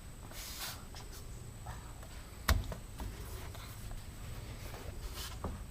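Light handling noise of parts and tools during a UTV muffler install: small clicks, scuffs and rustles, with one sharp knock about two and a half seconds in.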